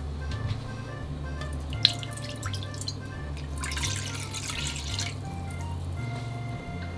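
Water poured from a clear container into a deep nonstick pan, splashing for about a second and a half midway, then a few drips. A sharp click about two seconds in, and background music with a bass line throughout.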